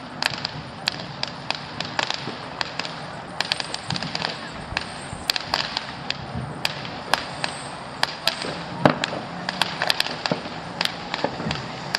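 Fireworks going off all around at a distance: an irregular, continual run of sharp bangs and cracks, a few each second, over a steady background hiss, with one louder bang about nine seconds in.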